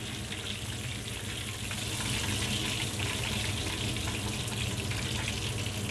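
Coconut-coated chicken pieces shallow-frying in a pan of hot oil, the oil sizzling steadily.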